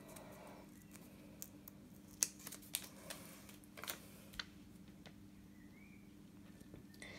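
Faint handling of a paper planner sticker: a few soft, scattered clicks and rustles as it is handled and pressed onto a planner page, over a faint steady hum.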